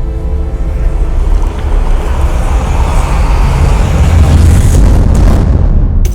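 A loud low rumble with a rushing hiss that swells over several seconds and breaks off suddenly near the end: a cinematic sound-design swell in a promotional soundtrack.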